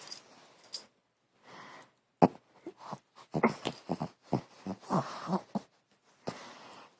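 Dog making a quick, irregular string of short, pig-like noises, starting about two seconds in and lasting a few seconds.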